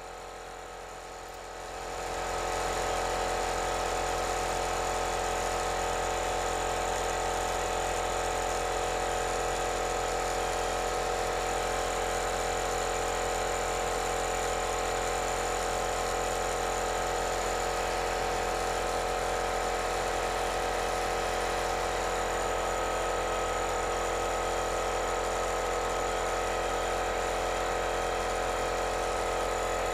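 Handheld hair dryer running steadily, its motor and fan hum coming up to full level about two seconds in, blowing warm air to heat-set fresh airbrush paint.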